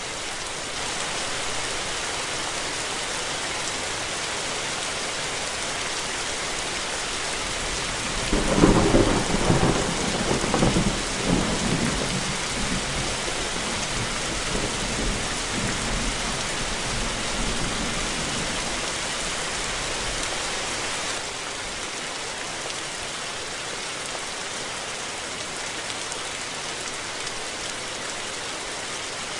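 Steady rain falling, with a thunderclap about eight seconds in that rolls on as rumbling thunder in waves for nearly ten seconds before dying away.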